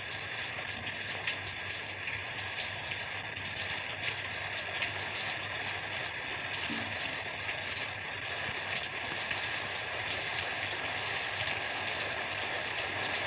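Steady rain falling, heard through an old film soundtrack that makes it thin-sounding, with its sound crowded into a narrow middle band.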